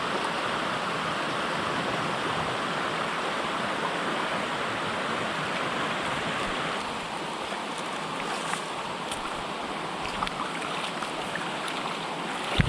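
Mountain creek water running over rocks: a steady rushing that changes slightly in tone and level about seven seconds in.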